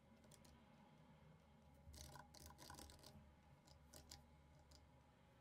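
Near silence with faint, scattered computer keyboard clicks, a short cluster of them about two to three seconds in.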